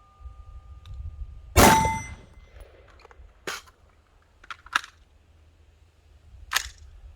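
A single handgun shot about a second and a half in, followed by the short ring of a struck steel target. A few fainter sharp clicks follow.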